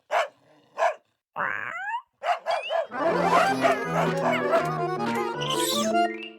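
Cartoon dog barks, two short barks, followed by a sliding sound effect and then a short musical sting with a stepping bass line.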